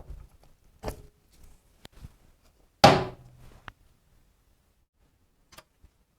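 Several separate knocks and clunks of metal tools and engine parts being handled on a workbench. The loudest comes about three seconds in with a brief ring.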